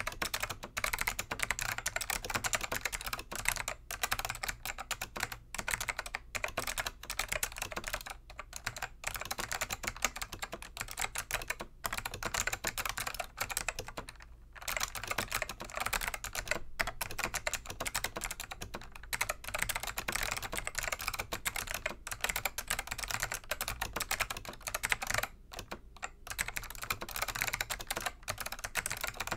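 Continuous fast typing on a Dell AT101 keyboard with click-modded Alps SKCM Black switches, the tactile leaves' retaining tabs removed so each keystroke clicks: a dense stream of sharp key clicks with brief pauses now and then.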